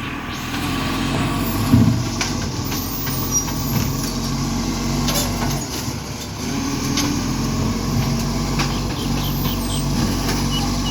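Iveco ACCO garbage truck's diesel engine running, with an exhaust leak, and a single heavy thump a little under two seconds in.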